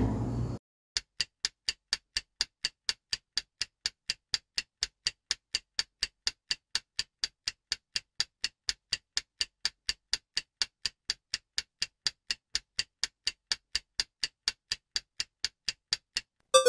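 Stopwatch ticking sound effect for a countdown timer: even, fast ticks at about four a second, with a short falling tone starting just before the end.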